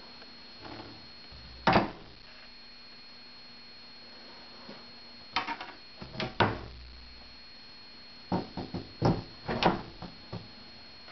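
Irregular short knocks and clicks, single ones and quick clusters, over a faint steady high whine and low hum.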